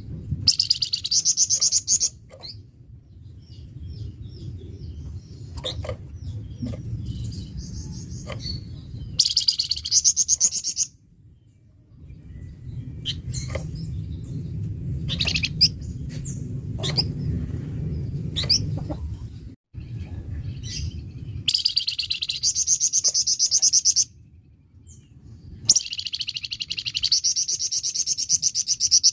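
A caged flamboyan songbird singing in loud bursts of rapid, harsh, chattering song, four phrases of one to three seconds each, with single sharp chips between them. A steady low rumble runs under the song.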